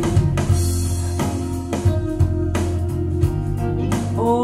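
Recorded song playing, led by guitar over a steady bass line, with a singing voice coming in near the end.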